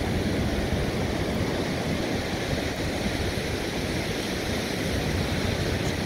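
Steady rush of ocean surf on a beach, mixed with wind on the microphone.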